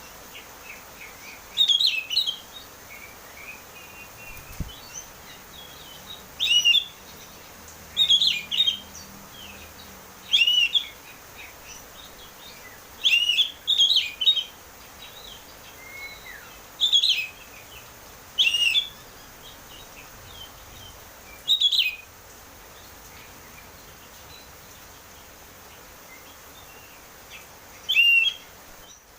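Oriental magpie-robin (kacer) singing: short, clear whistled phrases that come every second or two, with a pause of several seconds near the end.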